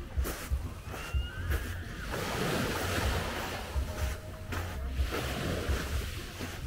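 Sea waves washing onto the beach, one wave rushing in about two seconds in and running on for a couple of seconds, with wind buffeting the microphone.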